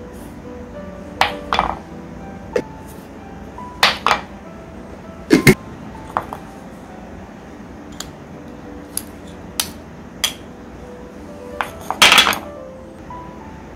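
Kitchen utensils and dishes clinking and knocking a dozen or so times at irregular intervals, with a longer clatter near the end, over soft background music.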